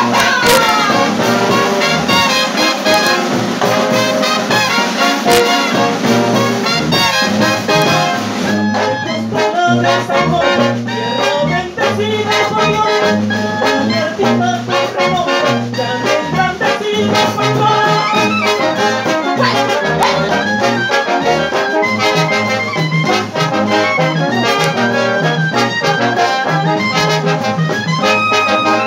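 Colombian brass band playing a porro, with trombones and trumpets carrying the melody over a steady low bass line and regular beat.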